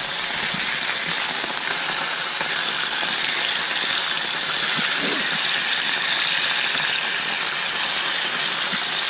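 Horse-eye jack steaks sizzling steadily in hot olive oil in a frying pan as they are turned over mid-cook.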